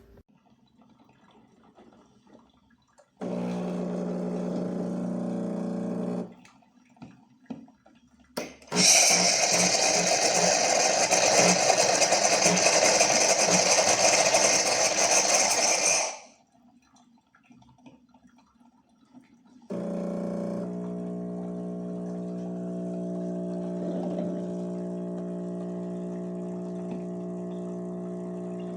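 Espresso machine's pump humming steadily for about three seconds, then a loud steady hiss for about seven seconds. From about twenty seconds in, the pump hums steadily again.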